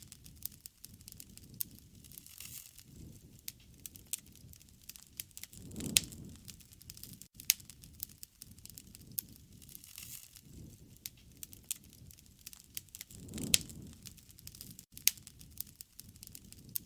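Wood fire crackling, with irregular sharp pops and snaps over a low rumble of flame that swells twice, about six and thirteen seconds in.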